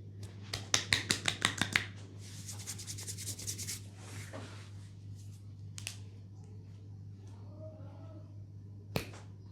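Hands on bare skin during a knee massage: about nine quick, sharp slaps in a row, then a faster run of lighter rubbing strokes. A single sharp click comes near the end.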